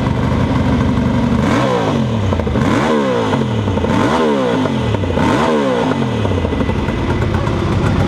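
Ducati race motorcycle engine running, blipped four times in quick succession, each rev climbing and falling away, then settling back to a steadier run.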